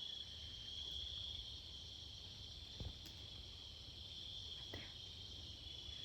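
Steady chorus of insects, a continuous high-pitched buzz, with a couple of faint small ticks about three and five seconds in.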